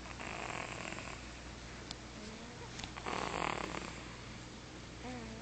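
A sleeping baby snoring: two noisy snoring breaths about three seconds apart, each lasting about a second. A brief faint hum is heard near the end.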